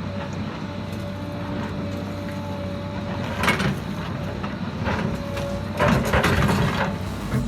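Heavy machinery running with a steady low engine hum and a held whine, and a few clunks about three and a half and six seconds in.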